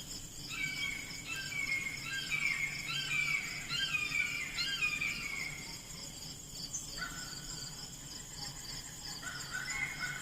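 A songbird singing in repeated short chirping phrases over the steady, high, pulsing trill of insects. The bird stops a little past the middle and starts again near the end.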